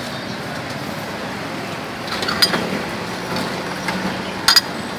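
Steady street traffic noise with a few sharp metal clinks of a ladle against the broth pot: one about halfway through and a louder double clink near the end.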